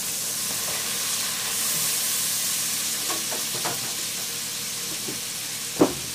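Chickpeas and ground spices frying in hot oil in a nonstick pan, sizzling steadily, stirred with a spatula at first. A single sharp knock comes near the end.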